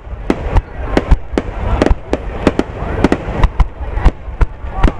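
Rapid-fire fireworks barrage: shells bursting in quick succession, about three sharp bangs a second over a steady low rumble.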